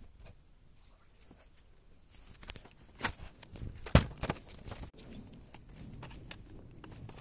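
Cardboard packaging being handled: scattered knocks and rustles, the loudest about four seconds in, then a softer steady rustling near the end.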